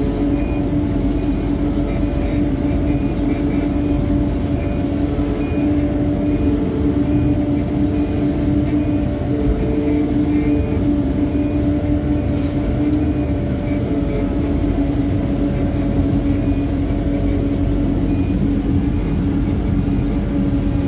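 Wacker Neuson articulated site dumper's diesel engine running steadily while driving, heard from the driver's seat. A faint high beep repeats about once a second.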